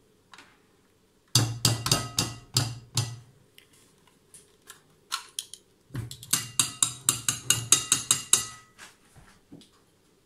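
Metal hand-mixer beaters knocked against the rim of a glass mixing bowl to shake off cake batter: two runs of quick clinking taps, the first about a second in and a longer one about six seconds in.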